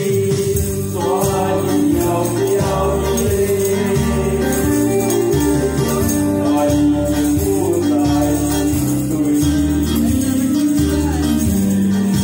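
Karaoke accompaniment music playing through a sound system, with a steady bass line and long held melody notes.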